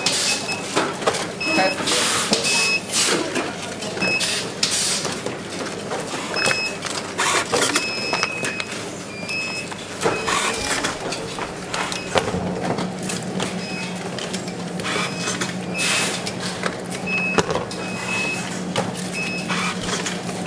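Short high electronic beeps, a dozen or more at irregular spacing, from a battery tester as its probes are touched to cell after cell. Light clicks and clatter of handling over steady factory background noise, with a low hum coming in about halfway.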